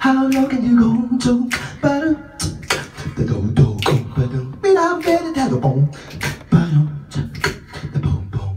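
Beatboxing into a handheld microphone: sharp vocal percussion hits in a steady rhythm, mixed with held sung or hummed notes at the start and again around the middle.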